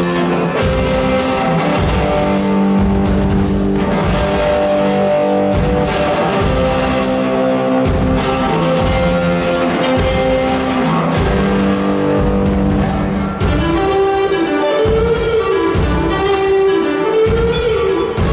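Live rock band playing: electric guitar over bass and a drum kit with steady drum hits. In the last few seconds the guitar plays a lead line with bending, wavering notes.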